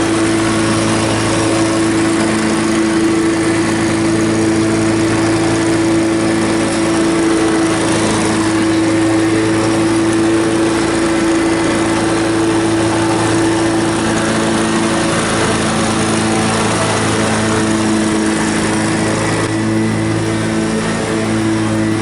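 Exmark Turf Tracer walk-behind mower's engine running steadily at mowing speed, a constant droning hum.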